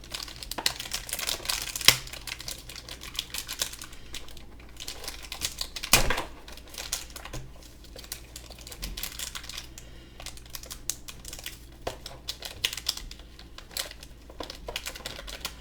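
Plastic and cardboard action-figure packaging being handled and opened: crinkling with many small clicks and rustles, and two sharper snaps, about two seconds in and about six seconds in.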